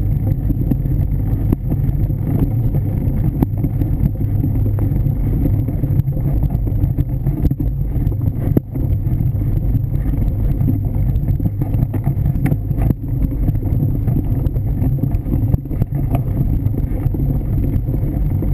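Mountain bike riding a leaf-covered dirt trail, heard from a camera mounted on the bike: a steady low rumble of tyre and wind noise, with scattered short rattles and clicks from the bike over the bumps.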